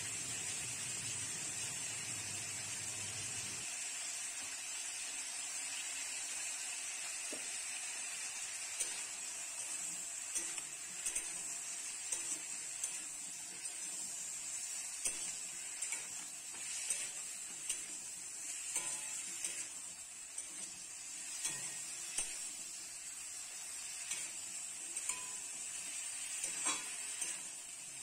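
A metal spatula scraping and knocking against a metal kadai, in short irregular strokes, while star fruit pieces frying in oil are stirred. Under it runs a steady hiss from the hot pan.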